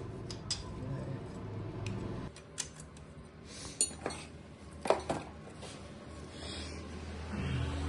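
Hand tools clinking and tapping against the bolts and metal casing of a motorcycle engine as it is tightened up, a scatter of sharp metallic clinks, the loudest a few seconds in.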